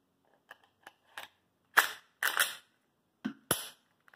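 Metal clicks and clacks of a Glock slim-frame pistol being handled while its slide is swapped: a few light clicks, then several sharp clacks, one drawn out briefly like a slide moving on its rails.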